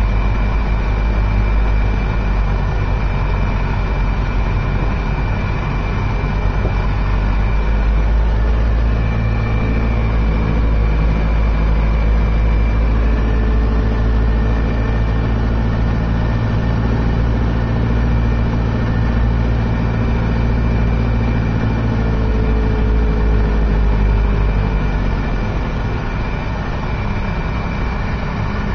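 A car's engine and tyre noise as it drives slowly, a steady low rumble that eases slightly near the end.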